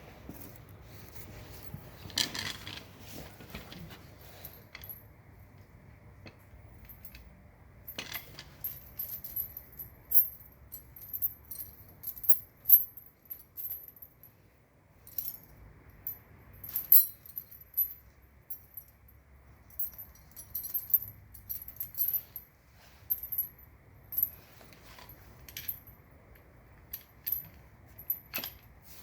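Steel tire chain links clinking and jangling as the chain is handled, in many irregular sharp metallic chinks.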